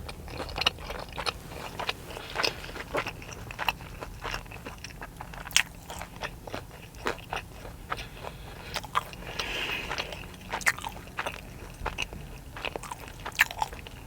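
Close-up chewing and crunching of a hand-breaded fried chicken tender wrap, with irregular crisp crunches from the breading.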